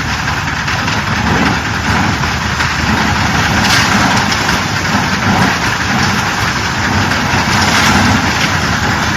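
JZC350 drum concrete mixer running steadily.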